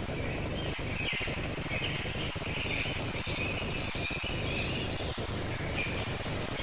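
Birds chirping faintly, with scattered calls over the steady hiss and low hum of an old film soundtrack.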